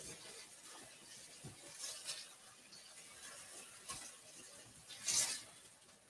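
Faint cooking sounds from a frying pan: a spatula tapping and scraping as chicken patties are turned, with a short hissing scrape about five seconds in.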